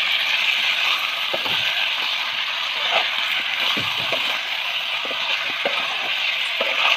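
Chicken pieces sizzling in hot oil in a kadai, a steady hiss, while a metal spoon stirs them, scraping and knocking against the pan now and then.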